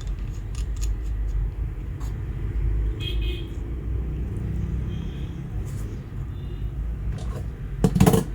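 Hot air rework station switched on and heating: a steady low blower rumble, with light clicks, a short electronic beep about three seconds in, and a loud knock near the end.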